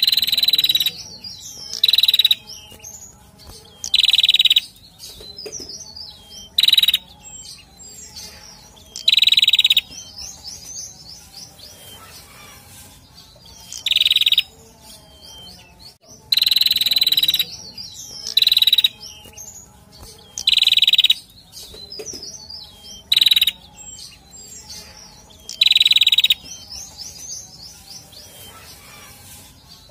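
Male prenjak singing: loud, high calls of about half a second each, repeated roughly every two seconds, with softer quick twittering between them.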